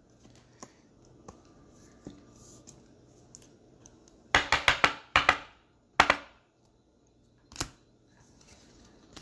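Trading cards and their plastic holders being handled on a table: small ticks, then a quick run of four or five sharp clicks about four seconds in, and single sharp snaps near six and near seven and a half seconds.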